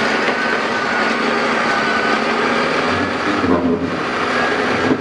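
Heavy machinery's diesel engine running loudly and steadily, with a brief change in its sound about three and a half seconds in.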